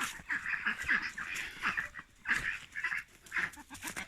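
Hens clucking: a string of short, irregular calls.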